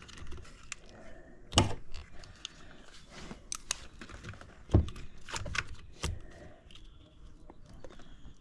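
Metal hand tools clicking and clinking on a battery terminal as its bolt is tightened with an adjustable wrench and a driver. There are irregular light clicks, two sharper knocks about one and a half and five seconds in, and a quick run of clinks just after the second knock.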